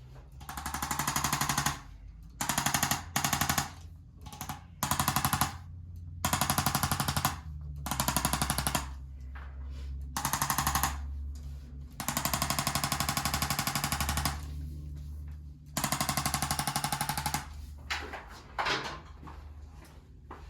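Handheld electric percussion device hammering rapidly against the body in repeated bursts of one to two seconds, with a low motor hum carrying on between bursts.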